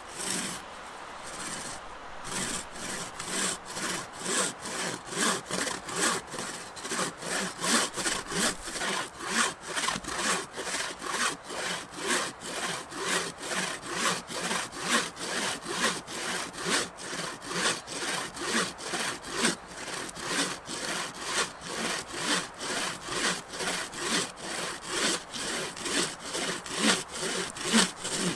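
Bushcraft bow saw with a bent-branch frame cutting through a fallen conifer log, its blade rasping back and forth in steady strokes about two a second.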